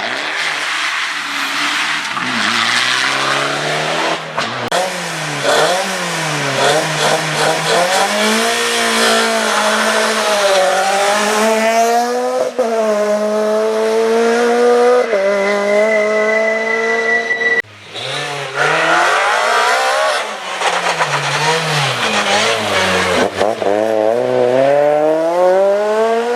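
Rally car engines at full stage pace, the revs climbing hard and dropping repeatedly through quick gear changes and lifts. There is a short break about two-thirds of the way in, then another run of rising and falling revs.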